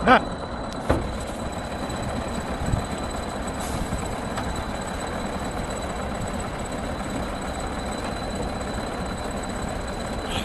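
A heavy engine running steadily. A short loud pitched sound right at the start and a sharp knock about a second in stand out above it.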